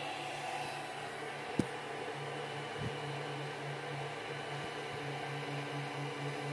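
3D printer's cooling fans running steadily under a low hum that pulses about three times a second, with a sharp click about a second and a half in and a softer knock a little later as the gantry is handled.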